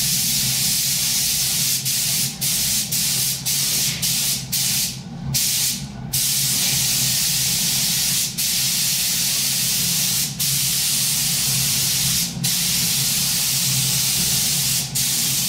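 Compressed-air spray gun hissing as it lays a thin first coat of clear coat onto plastic moldings. The hiss breaks off briefly each time the trigger is let go between passes: several quick breaks in the first six seconds, then longer passes. A steady low hum runs underneath.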